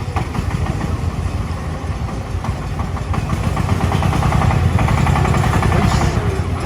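Single-cylinder diesel engine of a công nông farm truck running hard under load on a steep uphill, its rapid firing knocks getting louder about four seconds in.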